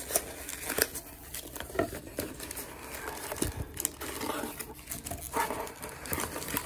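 Hands rummaging in a cardboard box: crinkling and rustling of packing material and wrapped trading-card packs as they are pulled out, with scattered light taps and knocks against the cardboard.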